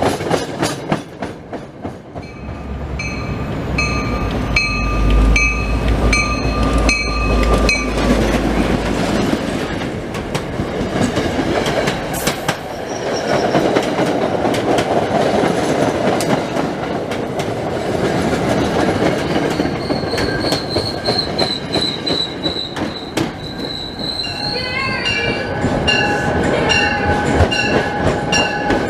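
Commuter train moving through the station with steady rail rumble and wheel clatter, and a high wheel squeal partway through. A pitched ringing repeats about twice a second early on and again near the end.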